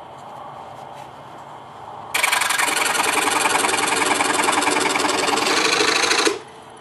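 DeWalt scroll saw with a number 5 Olson blade starting up and cutting wood, its blade stroking fast and evenly. It starts suddenly about two seconds in and stops suddenly about four seconds later.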